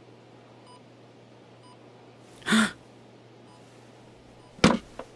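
Faint electronic beep repeating about once a second. It is broken by a loud, short burst of noise about halfway through and by a sharp knock followed by a smaller one near the end.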